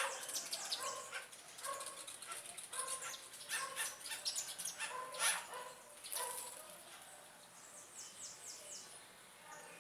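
Backyard birds calling and chirping, with many short repeated calls, two louder sharp calls at the start and about five seconds in, and a quick run of falling high chirps near the end.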